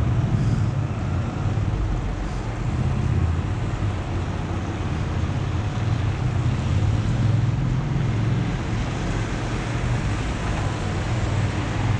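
Steady low rumble of city road traffic, cars and a van passing.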